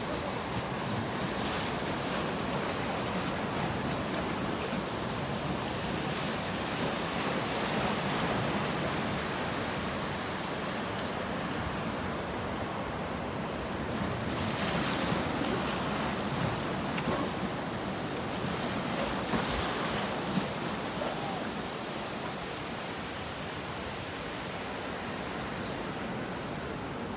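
Small ocean waves washing and breaking near shore, with wind rushing over the microphone; the surf swells louder for a few seconds about halfway through.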